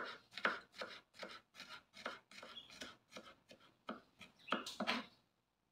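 Knife slicing smashed garlic cloves on a cutting board: quick, even cuts at about four a second, stopping shortly before the end.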